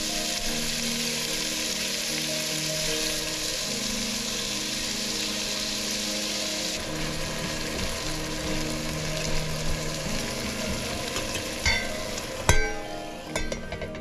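Food sizzling and frying in a pan, a steady hiss that drops somewhat about halfway through, with a few sharp knocks near the end.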